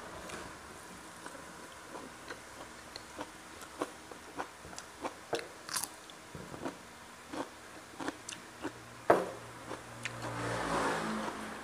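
Close-up eating sounds of a person biting, chewing and crunching through fried catfish and raw vegetables. Short crunches and mouth clicks come through the whole stretch, with one sharp, much louder click about nine seconds in.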